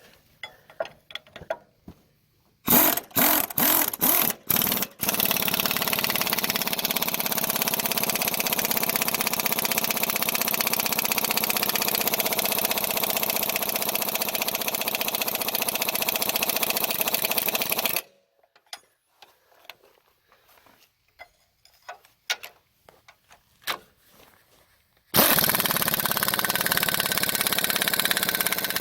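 Pneumatic impact wrench working a plow standard's bolts: a few short trigger blips, then a long steady run of hammering of about thirteen seconds. It stops with a few clicks as the socket is shifted, and starts hammering again near the end. The air hose is too small for this impact, so it is starved of air and the bolts are slow to come loose.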